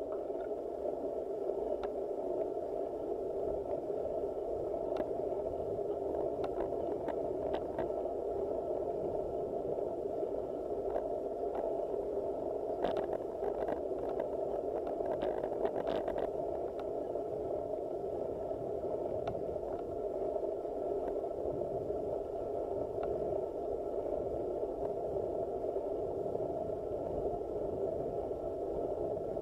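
Steady rushing noise of a road bicycle climbing slowly, tyre and riding noise picked up by a handlebar-mounted action camera, with a faint steady tone above it. Scattered small clicks and rattles come through, most of them between about 12 and 16 seconds in.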